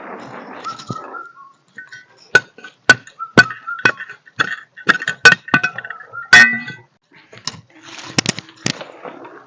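A quick run of sharp clinks and knocks, about a dozen with a short ring to them, from about two seconds in until past the middle, with softer rustling before and after.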